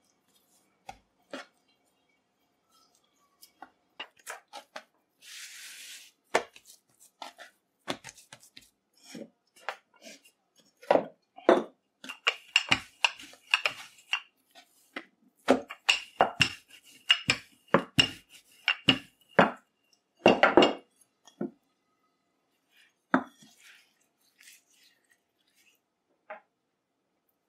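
Roti dough being cut and rolled out on a wooden board: scattered knocks and taps, then a dense run of rolling-pin knocks and rubbing for about ten seconds in the middle, with a faint high squeak. A brief hiss about five seconds in.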